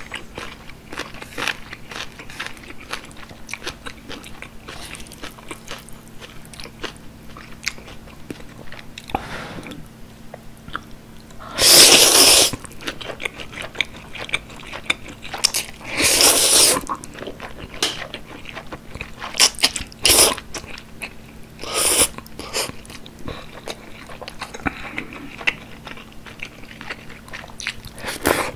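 Close-miked eating of jjajang instant ramen: steady wet chewing and biting, broken by two long, loud noodle slurps about twelve and sixteen seconds in and shorter slurps a few seconds later.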